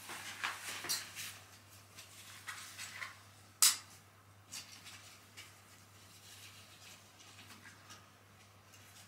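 Quiet handling sounds as a dog is held and stroked: soft rustling of fleece and small clinks of the dog's harness and chain leash, with one sharp click a little over three and a half seconds in. A low steady hum runs underneath.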